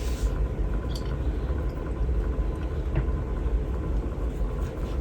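Steady low background rumble, with a couple of faint clicks about one and three seconds in.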